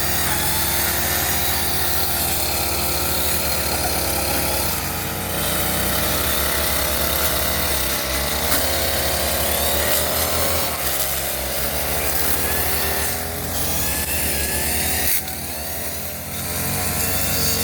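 Petrol brush cutter running at high revs while clearing undergrowth, its engine note dipping and rising a few times as the throttle is eased off and opened again.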